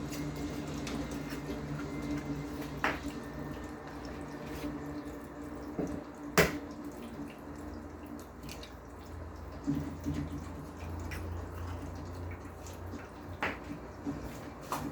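Kitchen work sounds: a few sharp clicks and knocks of utensils or dishes, the loudest about halfway through, over a steady low hum and a wet, watery background.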